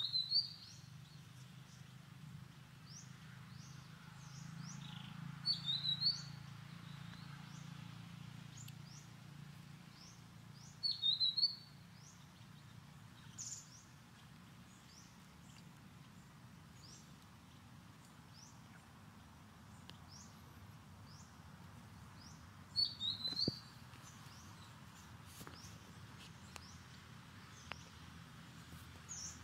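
Short bursts of high, quick chirping calls, four times across the stretch, with fainter brief high chirps scattered between them, over a low steady hum.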